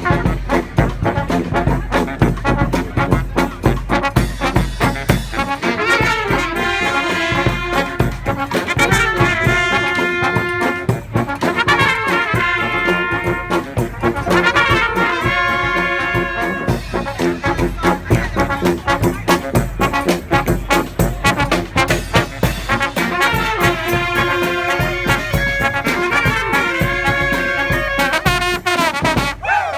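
Street brass band playing a Balkan-style kopanitsa tune: trombones and trumpets carry the melody over steady percussion.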